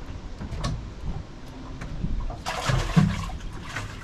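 Water splashing and sloshing for about a second and a half, beginning a little past the middle, with a sharp knock in the midst of it and a few lighter knocks before.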